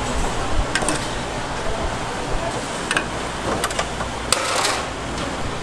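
Metal tongs clinking and scraping against an aluminium pot as noodles are stirred, a few sharp clinks scattered through and a longer scrape about two-thirds of the way in, over a steady background hiss.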